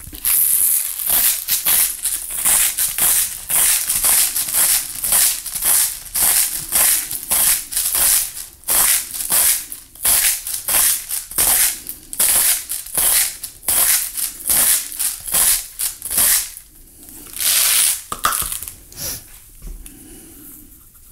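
Hand-twisted salt mill grinding coarse Himalayan pink salt: a run of quick crunching strokes, about two or three a second, then one longer grind near the end before it stops.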